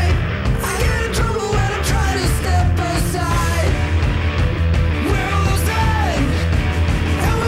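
Background music with a singing voice over a steady driving beat.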